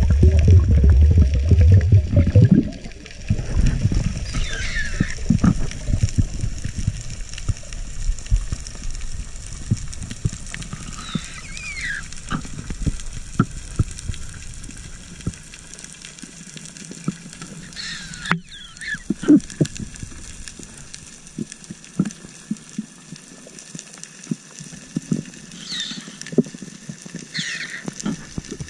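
Underwater sound heard through a camera housing: a loud rush of moving water for the first two or three seconds, then a quieter crackle of small clicks with a few short squeaky pitch glides.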